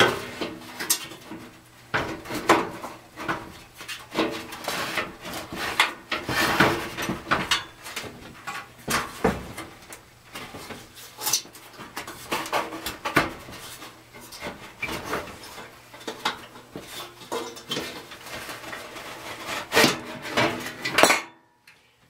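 Metal parts of a Suburban NT-34SP RV furnace clinking, scraping and rattling as they are pulled and twisted loose by hand, with irregular knocks throughout. The sound cuts off abruptly about a second before the end.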